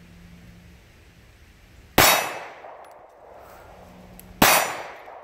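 Two shots from a Smith & Wesson M&P Shield 9mm pistol, about two and a half seconds apart, each a sharp crack followed by a ringing tail that fades over about a second.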